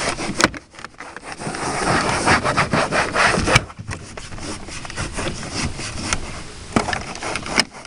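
A cloth towel scrubbing a plastic truck door panel in quick back-and-forth strokes, a few per second, with short pauses. Now and then there is a sharp knock.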